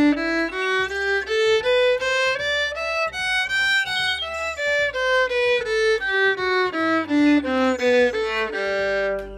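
Background music: a violin plays a light melody of short notes that step up and down, over a soft low accompaniment.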